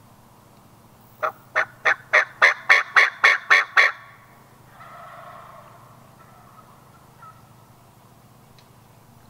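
A run of about ten turkey yelps, about three or four a second, each louder than the last before levelling off, with a fainter, drawn-out sound just after.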